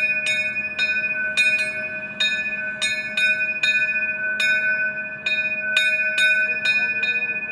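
A steam locomotive's cab-roof bell rung by its pull cord, struck about twice a second in an uneven rhythm, each stroke ringing on into the next.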